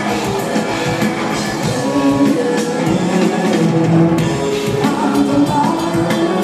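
A rock trio playing live and loud: electric guitar, electric bass and drum kit, heard from within the audience.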